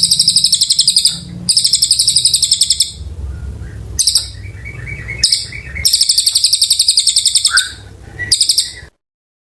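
A cililin songbird singing rapid, high trills in bursts of about a second, with short gaps and a softer run of lower notes between them. A low hum runs underneath, and the sound cuts off suddenly near the end.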